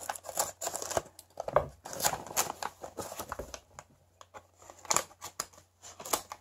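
Thin plastic gift wrap crinkling and tearing as it is snipped with small scissors and pulled open by hand, in irregular crackles and rustles.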